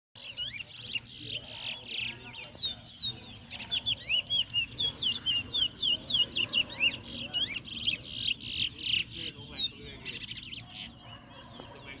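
Towa-towa (chestnut-bellied seed finch) singing a fast string of short, sweeping whistled notes, about four a second at its busiest, thinning out near the end.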